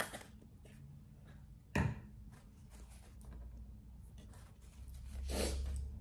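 Cap screwed onto a sauce jar at the start, a knock on the wooden board about two seconds in, then faint chewing and mouth sounds of eating a lettuce wrap, with a louder crunchy noise near the end.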